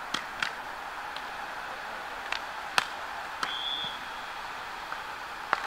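Sharp slaps of a beach volleyball being struck by hands and arms during a rally, half a dozen contacts with the loudest about three seconds in, over steady outdoor background noise. A brief high whistle sounds about three and a half seconds in.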